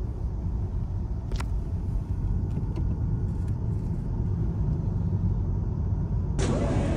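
Car interior driving noise: a steady low rumble of road and engine, with one sharp click about a second and a half in. Music comes in near the end.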